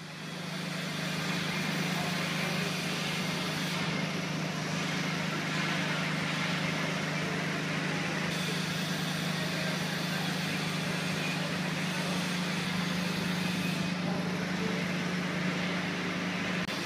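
Railway station concourse ambience: a steady low hum under an even wash of crowd noise.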